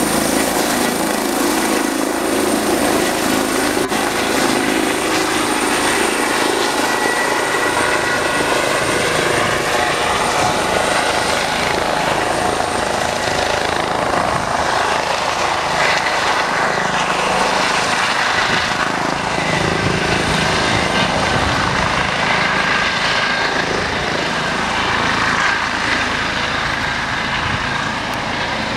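Eurocopter EC135 helicopter's rotor and twin-turbine engines running steadily as it climbs away after take-off, with a steady high whine above the rotor noise. The sound drops slightly near the end.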